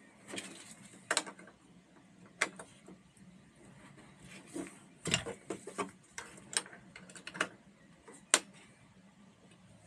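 Irregular small clicks, snaps and taps of a plastic alarm door sensor being handled, its case opened and its A23 button battery swapped.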